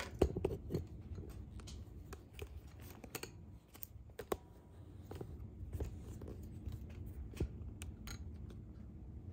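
Scattered dry crackles and clicks of dried chili pods being handled, their stems snapped off.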